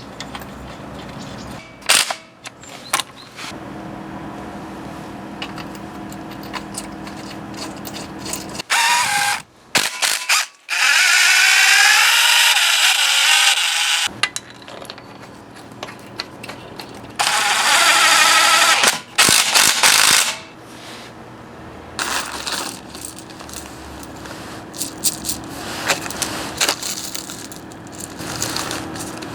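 Hand-held power drill/driver run in two bursts of a few seconds, its motor whine wavering in pitch, amid clicks and clinks of tools and metal parts handled on the bench.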